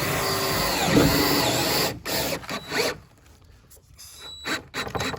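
Power drill running hard under load for about two seconds, its pitch dipping and recovering about a second in, then a few short bursts on the trigger.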